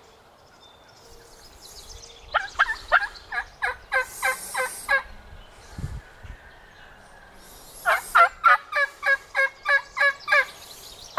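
Turkey calling: two runs of about a dozen quick notes each, roughly four or five a second, every note dropping in pitch. A dull thump falls between the runs.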